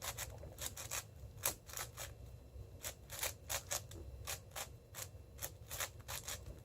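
6x6 speedcube being turned fast during edge pairing: a quick, uneven run of plastic clicks and clacks from its layers, several a second.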